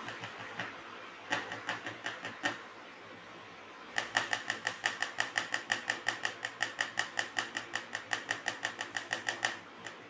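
The loose metal rear number plate of a Honda Activa scooter rattling against the plastic mount behind it as it is flicked by hand. First come a few separate clacks, then about four seconds in a rapid, even clatter of many clicks a second. The plate's mounting rivets are loose or were never properly tightened.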